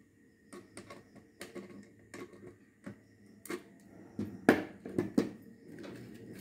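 Irregular light clicks and knocks of a plastic switch board and a screwdriver being handled and set down on a wooden table, with a few louder knocks between about three and a half and five seconds in.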